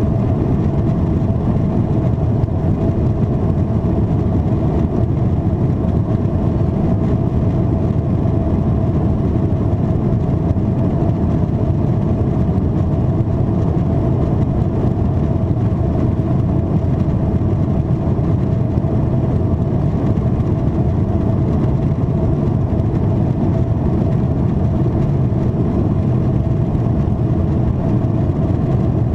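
Steady cabin noise inside a Boeing 777-300ER climbing: air rushing over the fuselage and the GE90-115B turbofan engines at climb thrust, with a constant mid-pitched hum over a deep, even rumble.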